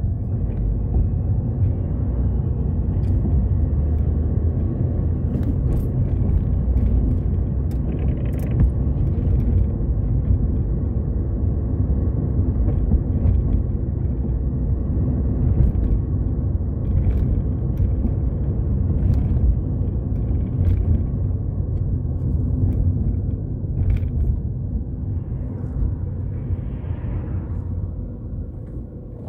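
Car driving, heard from inside the cabin: a steady low rumble of engine and road noise with a few faint clicks. It eases near the end as the car slows behind the van ahead.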